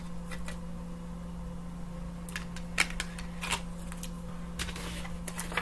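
Scattered light clicks and taps of tarot cards being handled, coming in irregular clusters, mostly in the second half, over a steady low electrical hum.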